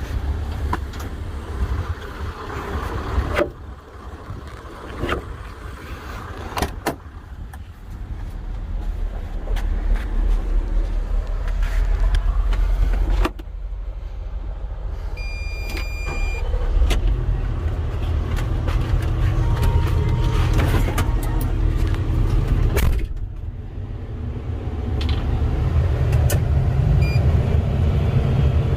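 Volvo EC220E excavator working: its diesel engine runs steadily, dipping and climbing in level several times, with scattered knocks and clicks. There is a short high beep about halfway through.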